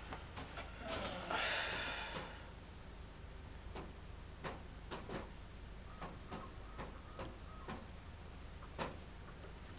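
Light clicks and taps of a metal main bearing cap and a plastic squeeze bottle being handled while assembly lube is applied to the bearing shell, with a brief rustle about a second in. A steady low hum runs underneath.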